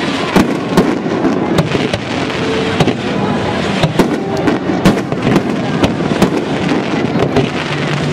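Fireworks display: aerial shells bursting with sharp bangs about twice a second, over a steady dense background of further bursts and crackle.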